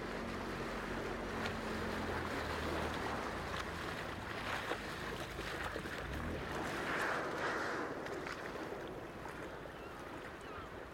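Open-sea ambience: wind and lapping water as an even steady hiss, with a low boat-engine hum that fades out about two seconds in.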